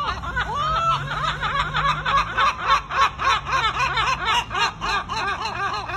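Two large gulls giving their laughing long call, a fast run of loud yelping notes about five or six a second that peaks in the middle and tapers off near the end.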